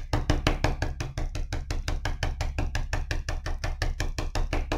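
White oil pastel tapped rapidly on watercolour paper to stipple dots of wax resist: a fast, even run of light taps, about nine a second.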